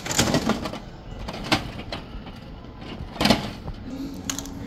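A few sharp clinks of coins being pushed into a gachapon capsule-toy machine's coin slot, the loudest about three seconds in, over steady shop background noise.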